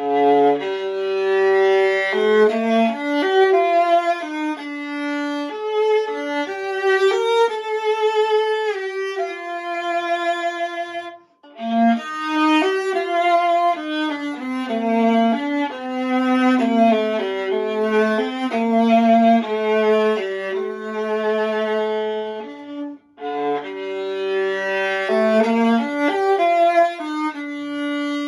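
Antique German Mittenwald viola (c1890, 15.5-inch body) played solo with the bow: a melody of sustained notes with vibrato, breaking off briefly about eleven seconds in before the playing resumes.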